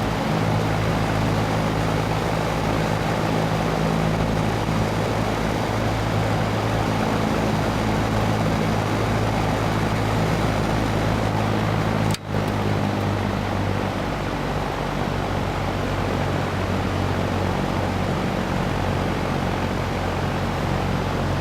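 Vintage AMC two-speed, electrically reversible metal box fan running steadily on its freshly oiled motor, blowing out, with an electric motor hum under the rush of air from the blades. About halfway through there is a brief break, and it then runs slightly quieter on low speed.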